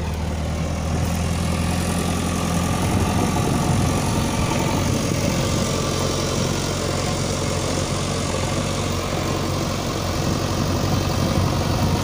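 Diesel engine of a JCB backhoe loader running with a steady low hum as the machine drives slowly past close by.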